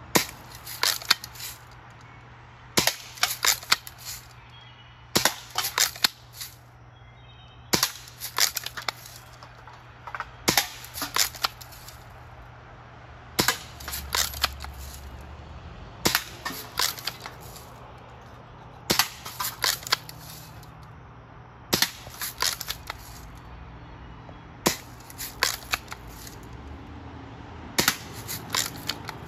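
Daisy Red Ryder lever-action spring-piston BB gun fired at tin cans, about eleven shots roughly every two and a half seconds. Each shot is a sharp pop inside a quick cluster of clicks from the lever being worked and BBs striking cans.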